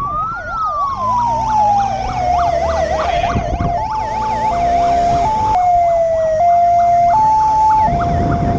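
Police sirens sounding: a slow wail falling in pitch, overlapped by a fast yelp, changes about three seconds in to a two-tone hi-lo pattern switching roughly every 0.7 seconds. A motorcycle engine runs underneath.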